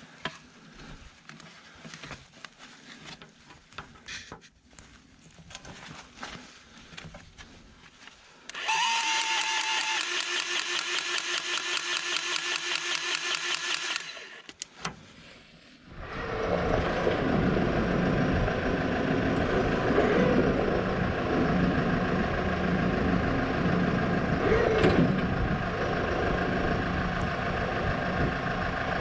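Small tractor engine being started: about five seconds of fast, pulsing cranking from about nine seconds in, then, after a brief pause, the engine running steadily from about sixteen seconds in. Before that, only faint scattered clicks and handling noises.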